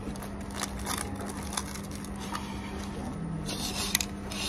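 Knife and fork scraping and sawing through crispy fried batter on a plate, with a few light clicks of cutlery, over a steady low hum.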